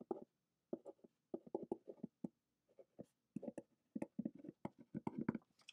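Pen writing on paper: a quick run of short, irregular scratching strokes.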